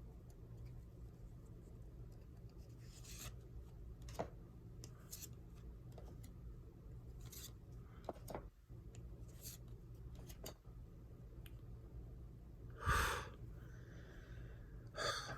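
Trading cards being handled and flipped through, with faint sliding and rustling, a few light clicks and a brief louder rustle near the end, over a low steady hum.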